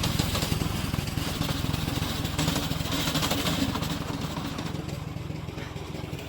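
Remote-controlled slope mower's engine running steadily, growing gradually quieter over the last few seconds.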